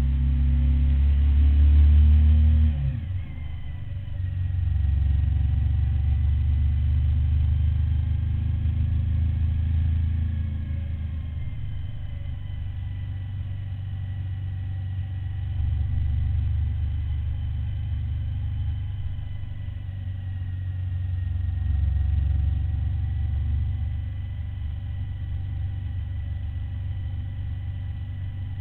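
Suzuki SV1000's 90-degree V-twin engine running as the bike rides. It rises to its loudest about two seconds in, drops suddenly near three seconds, then swells and eases again a few times.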